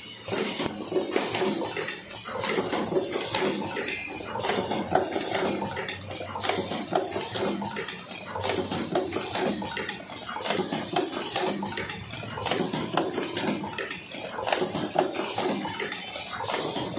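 Automatic cartoning machine running, a dense metallic clatter of clicks and knocks that swells and eases in a repeating cycle about every two seconds.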